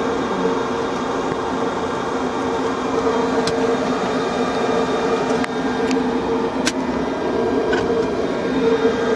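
Steady mechanical hum with a couple of steady tones in the cockpit of a powered-up Bombardier Challenger 601 business jet on the ground, with a few faint clicks.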